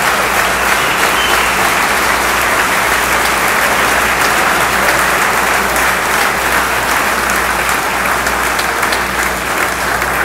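A large crowd applauding steadily, the dense clapping of many hands.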